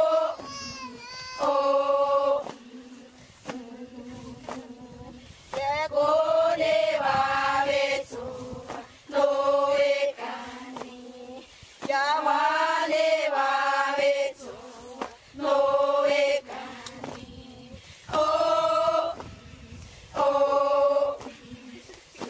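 Women and girls chanting a dance song together in unison, short sung phrases repeated about every two to three seconds with quiet pauses between.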